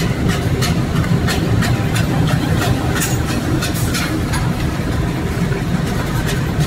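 Corrugated box printer, slotter, die-cutter and folder-gluer inline machine running: a steady low rumble with an even clack about three times a second.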